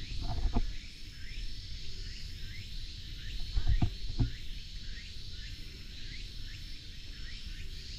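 Outdoor insect ambience: a steady high drone with short falling chirps repeating about twice a second. A few dull low thumps close to the microphone come about half a second in and again around four seconds in.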